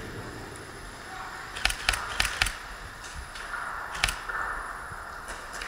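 Airsoft gunfire: four sharp cracks in quick succession about two seconds in, and one more about four seconds in, over steady background noise.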